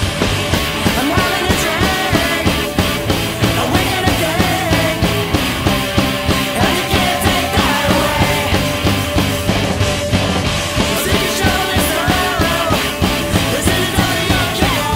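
A rock band playing a fast, loud song: distorted electric guitars, bass and a drum kit keeping a steady beat.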